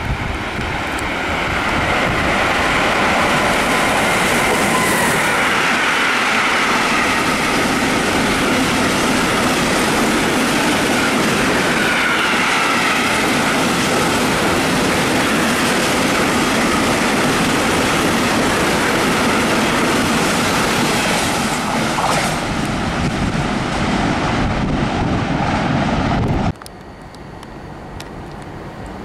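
Container freight train hauled by a Bombardier Traxx electric locomotive passing close by: a steady loud rumble and rattle of the wagons, with a wavering high squeal from the wheels. It builds over the first few seconds and cuts off abruptly near the end to a much quieter background.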